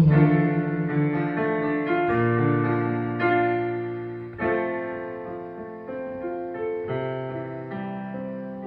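Piano music without singing: slow chords and single notes held and left to ring, the whole passage growing gradually quieter as the song ends.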